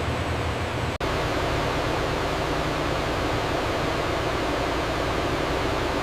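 Steady factory machinery noise, an even hiss-like drone. About a second in it cuts out for an instant and comes back changed, with a faint steady hum underneath.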